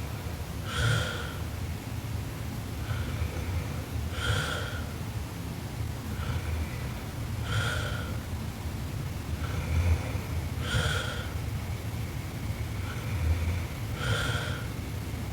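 A sleeping woman snoring, with a short, harsh snorting intake of breath about every three seconds, five in all, and quieter breaths out in between.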